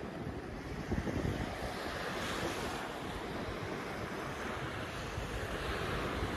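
Surf washing on a sandy beach, with wind buffeting the microphone as a low, uneven rumble; a wave's hiss swells a little over two seconds in.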